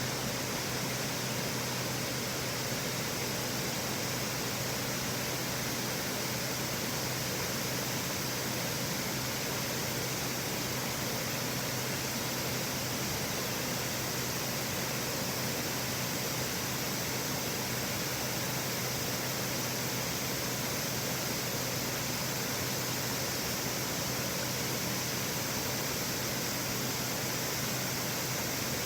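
Clear river water rushing and splashing in a steady, unbroken roar of running water.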